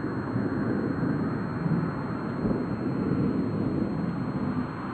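Storm wind blowing across the camera microphone, a steady low rushing rumble that swells and eases slightly.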